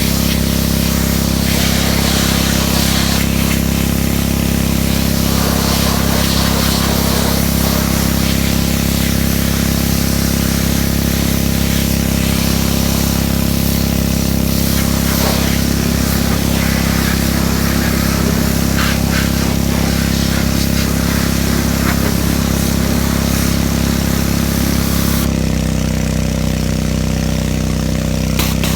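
Pressure washer running steadily with the hiss of its water spray. About 25 seconds in the spray hiss stops and the engine note changes slightly.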